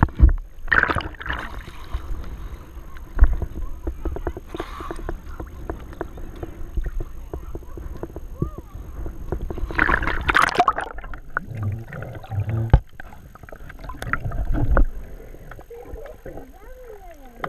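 Seawater sloshing and splashing around a waterproof action camera as it bobs at the surface, with scattered clicks and knocks against its housing and a louder splash about ten seconds in; the sound turns duller near the end as the camera goes under.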